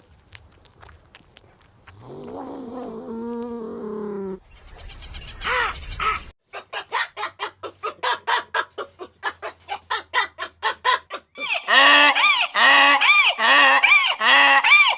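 A series of different animal calls, one after another. The loudest comes in the last few seconds: a run of loud, arching, pitched calls, about three a second.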